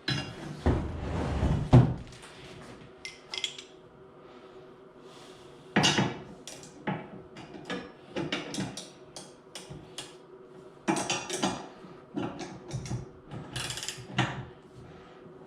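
Wrench work on the lawn roller's frame bolts: irregular metallic clicks and clanks as the support-rod fasteners are snugged up, with a heavier thump about two seconds in.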